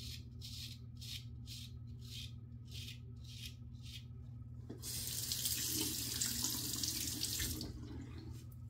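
Straight razor scraping through lathered stubble in short, choppy strokes, about two or three a second. About five seconds in a bathroom tap runs for nearly three seconds, then shuts off.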